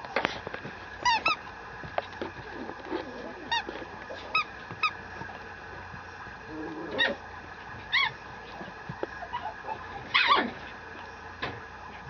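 Mame shiba puppy giving short, high-pitched yips and whines, each rising and falling in pitch, some in quick pairs, with the loudest cluster near the end.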